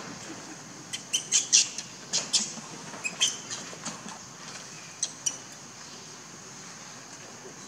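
Infant macaque giving a run of short, high-pitched squeals as its mother grabs and drags it. The squeals begin about a second in, come thick and fast for a couple of seconds, then thin out and stop about five seconds in.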